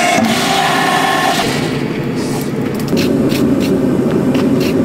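Forge running loudly with a steady whine, which breaks off about one and a half seconds in. Then, over a low steady rumble, a glowing Damascus steel billet on the anvil is scrubbed with a wire brush: a few sharp scratching strokes near the end.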